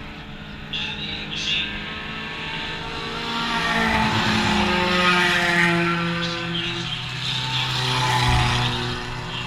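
Eco Stock race cars going by at speed on a dirt oval, engines running hard and growing louder as they come round the turn; one car passes about midway through and another near the end.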